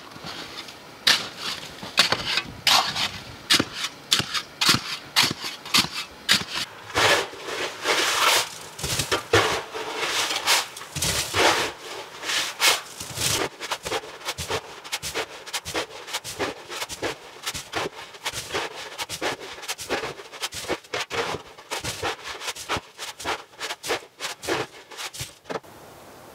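A shovel repeatedly chopping into and scraping packed snow and ice on a concrete floor, in sharp irregular strikes two or three a second. Longer scraping scoops come in the first half.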